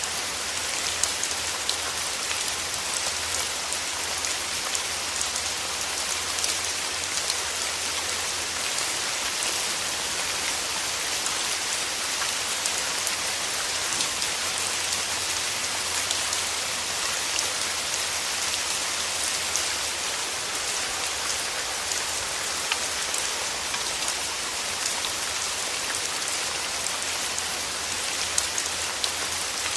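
Steady rain falling on a surface, a continuous hiss dotted with many small drop ticks.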